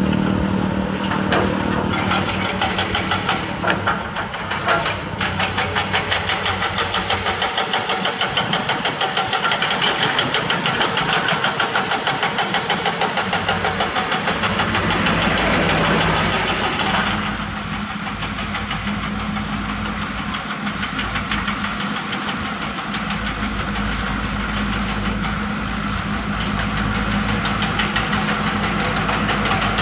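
Diesel engines of Komatsu heavy equipment running under work: a PC200 excavator digging with a fast, even pulsing in the engine sound, then about halfway through a change to a steadier, deeper engine hum as a Komatsu D31P dozer is worked.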